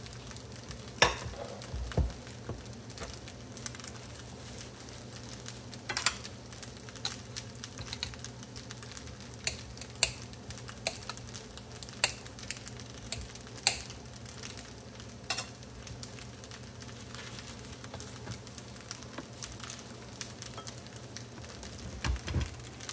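Fried rice frying in a pan: a steady faint sizzle with scattered sharp crackles and pops. A low knock near the end.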